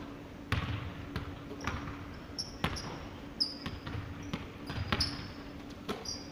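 Basketball dribbled on a hardwood gym floor: sharp, irregular bounces about once a second, mixed with short high squeaks of sneakers on the court, all echoing in a large hall. A faint steady hum sits underneath.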